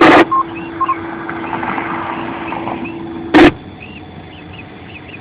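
Ham radio transceiver between transmissions: a loud burst of squelch noise, two short beeps and a steady hum, then a second squelch burst about three and a half seconds in, where the hum cuts off. Birds chirp faintly throughout.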